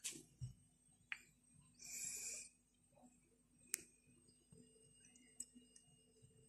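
Near silence broken by a few faint clicks of plastic and a short rustle about two seconds in, as a plastic squeeze bottle of sauce is handled over a dessert glass.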